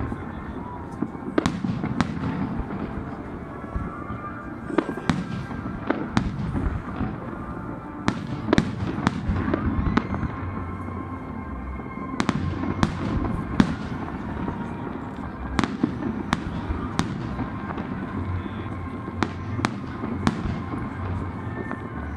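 Fireworks going off: many sharp bangs and cracks at irregular intervals over a continuous low din of further bursts.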